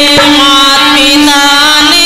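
Indian music: an ornamented, wavering melody over a steady drone note, with a single drum stroke just after the start.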